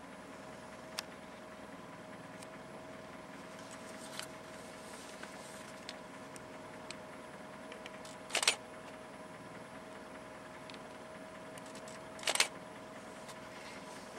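Idling vehicle engine: a steady hum with a constant mid-pitched tone, broken twice by a short noisy burst about four seconds apart.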